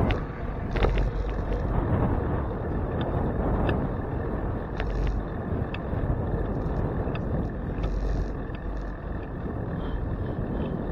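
Wind buffeting the microphone of a handlebar-mounted camera on a moving bicycle, over a steady low rumble of tyres on the road, with scattered light clicks and rattles.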